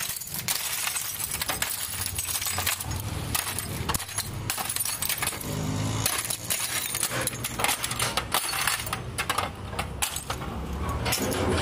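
Broken glass bottles crunching and clinking as a steel rod is jabbed down into them, crushing and packing the glass into the gap between a clay tandoor pot and its steel drum casing. Dense, sharp clinks run throughout.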